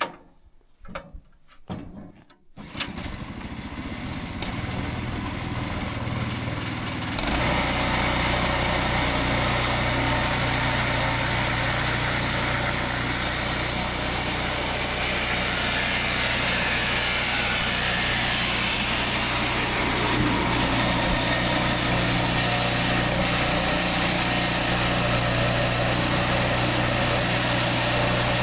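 A sawmill's newly fitted replacement engine starts up about three seconds in and runs. About seven seconds in it gets louder and fuller as the clutch is engaged, then runs steadily. The drive pulley is the wrong size and does not give the belt enough pressure when the clutch is engaged.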